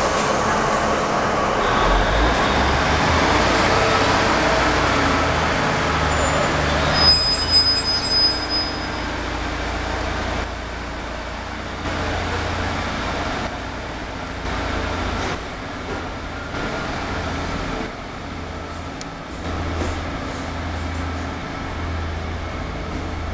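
British Rail Class 153 diesel multiple unit pulling out, its underfloor Cummins diesel engine running under power with a steady low rumble that grows quieter as the train draws away. A brief high squeal sounds about seven seconds in.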